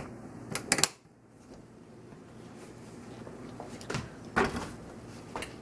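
Kitchen items being handled and set down on a counter: a sharp double clack under a second in, then a few more knocks about four seconds in.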